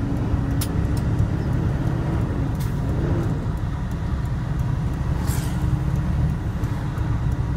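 Tractor-trailer's diesel engine and road rumble heard inside the cab as the driver works up through the gears, with a few brief clicks.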